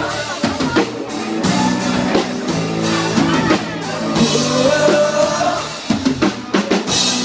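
Country-rock music, an instrumental break with drum kit, bass and guitar between sung lines.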